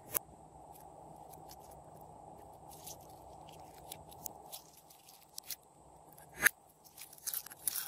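Hands squeezing and stretching glittery clear slime, making scattered sticky clicks and pops. A sharper pop comes about six and a half seconds in, and a quick run of clicks near the end.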